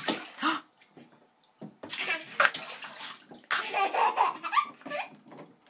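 Bathwater splashing in the tub in several bursts as a toddler plays in it, with the toddler laughing.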